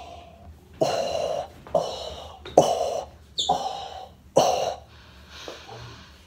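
A young person's voice giving five short, strained vocal bursts, like effortful grunts and gasps, about one a second, each starting suddenly.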